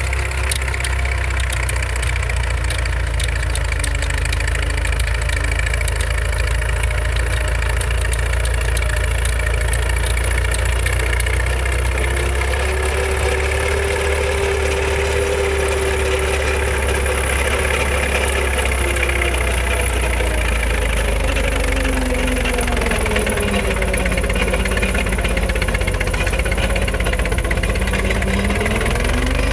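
1928 Case 18-32 crossmotor tractor's four-cylinder engine running steadily under load while it pulls a plow. Its pitch sags and then recovers in the second half.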